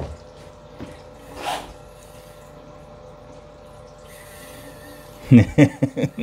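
Low, faint steady hum, then about five seconds in a person laughs in a quick run of short bursts.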